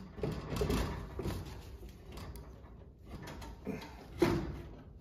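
Metal scraping and clunking from a 1928 Ford Model A's wheel hub as the wire-spoked wheel and its bearing parts are worked on by hand. There is one sharp knock about four seconds in.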